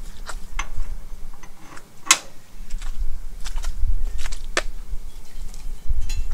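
Scattered sharp clicks and clinks of metal parts being handled, the loudest about two seconds in, over a low rumble.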